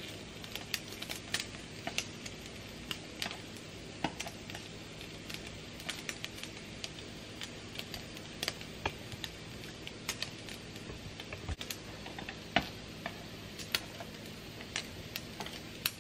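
Turkey bacon frying in a nonstick griddle pan: a low steady sizzle with irregular small pops and crackles.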